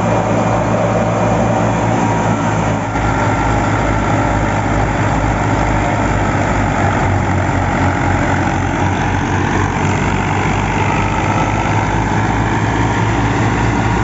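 Fiat 480 tractor's diesel engine running steadily under load, powering a wheat thresher through its PTO. The thresher's drum runs as a continuous rushing noise over the engine.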